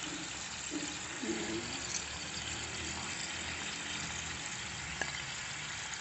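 Teriyaki sauce simmering and sizzling in a frying pan, a steady hiss. A couple of light taps about two and five seconds in as pieces of fried salmon are laid into it.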